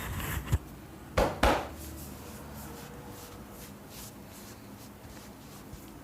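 Barber's hands working during an Indian head and upper-body massage: a couple of short strikes, then two loud hand strikes a little over a second in, followed by soft, quick tapping and rubbing.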